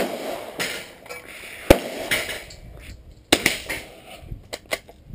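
Sharp gunshots on a shooting range, the loudest about a second and a half in and another about three seconds in, with handling noise between them. Near the end come several small metallic clicks as the bolt of a .22 single-shot bolt-action rifle is worked.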